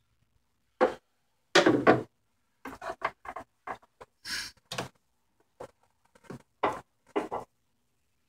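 Plastic-and-rubber air-intake elbow being twisted and pulled loose from the throttle body by hand: a run of irregular short rubs and knocks, loudest about two seconds in.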